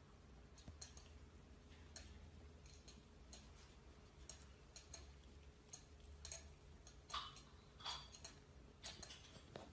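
Near silence, with faint, irregular soft clicks and rustles from an adult cat and a kitten wrestling on carpet.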